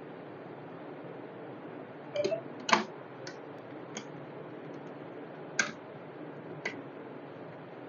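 Irregular clicks and taps as a screw is tightened into the plastic stand of a hydrafacial machine trolley and the parts are handled, about seven in all, the loudest a little under three seconds in.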